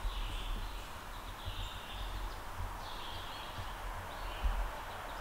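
Birds chirping outdoors: short calls repeating every second or so over a steady background hiss and a low, uneven rumble.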